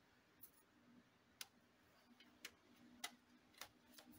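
Faint, sharp clicks and taps, about six spread over four seconds, as the bottom access cover of an HP EliteBook 840 G1 laptop is fitted back on and pressed into place.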